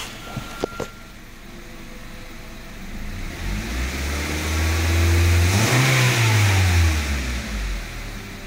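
2002 Honda Civic's 1.7-litre four-cylinder engine revved once: the pitch climbs steadily from idle about three seconds in, peaks, and falls back to idle near the end. A few light clicks come in the first second.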